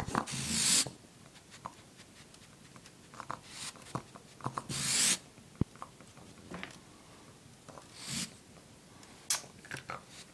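A caged pet raccoon hissing in three short breathy bursts, with small clicks and rustles in between; an agitated, angry raccoon.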